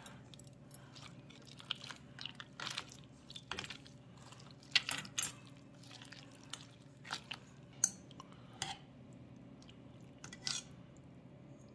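Metal chopsticks mixing mulhoe in a stainless steel bowl: scattered faint clicks and scrapes against the bowl and ice cubes, with soft wet stirring of sliced squid, vegetables and sauce.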